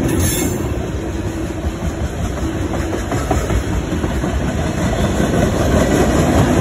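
A freight train's cars rolling past close by, steel wheels on the rails making a steady, loud rumble with a clickety-clack.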